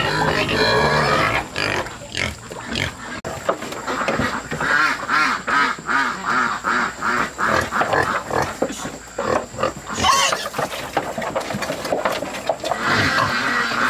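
A pen of pigs grunting and squealing over and over as they crowd and push at the feeding trough, with short high cries among lower grunts.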